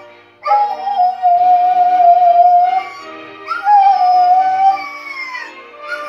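Doberman Pinscher howling along with the national anthem playing from a television, in long held notes with short breaks between them.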